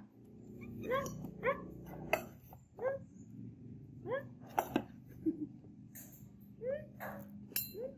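Baby macaque giving about nine short, high squeaking calls, each rising and falling in pitch, while it reaches for a milk bottle being filled: begging for food. A few light clicks sound between the calls.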